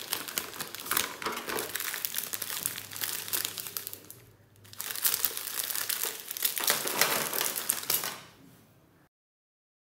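Foil-lined plastic snack wrappers crinkling as a multipack of Munch chocolate wafer bars and its individually wrapped bars are handled. There is a short lull about four seconds in, then more crinkling that fades, and the sound cuts to silence shortly before the end.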